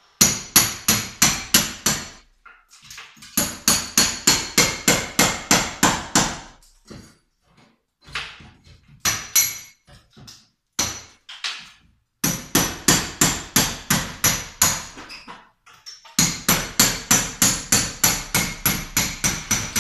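Hand hammer driving a brick chisel into a chimney breast's cladding to break it up in sections: sharp metal-on-metal blows, about four or five a second, in several runs with short pauses between them.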